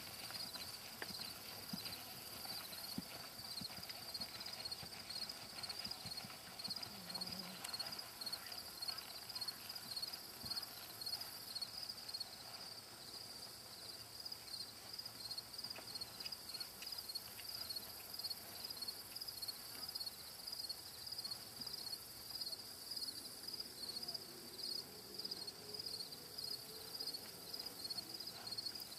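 Hoofbeats of a ridden horse jogging on soft arena dirt, a steady muffled rhythm of about two beats a second. A high, rapidly pulsing sound runs steadily underneath.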